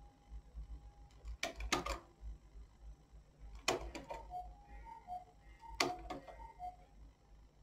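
Sharp metallic clicks and clacks from hands working a domestic knitting machine's needles and tools. They come in three short clusters about two seconds apart.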